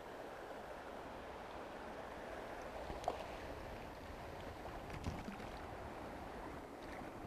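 Steady rush of a shallow, rocky stream flowing, with a brief splash from a hooked trout about three seconds in.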